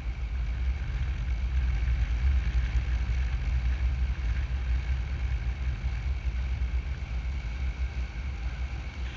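Wind from a paraglider's flight buffeting the camera microphone: a steady low rumble of wind noise.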